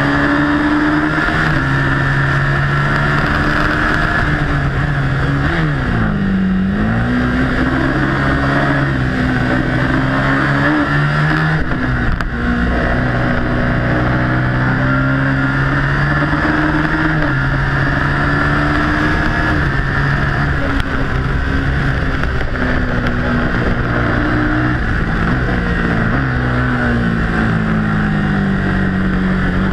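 Ducati Hypermotard's 821cc Testastretta V-twin engine heard close up from on the bike at track speed, revving up and down as it is ridden hard through corners. The pitch dips sharply and climbs again about six seconds in, with another short break in the engine note near twelve seconds.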